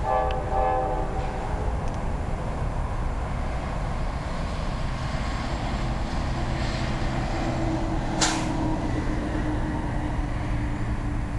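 Distant approaching train sounding its air horn once, about a second long, right at the start, over a steady low rumble. A short, sharp sound cuts in about eight seconds in.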